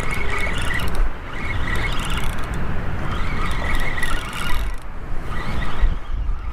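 Spinning fishing reel being cranked, its gears whirring in spells as line is wound in, over a steady rumble of wind on the microphone.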